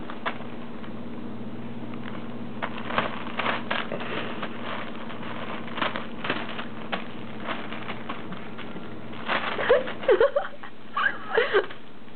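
Clear plastic sheeting crinkling and crackling under a Cavalier King Charles Spaniel puppy's paws as it scrambles and pounces while playing with a plush toy. Near the end come a few short, high squeaky yips from the puppy.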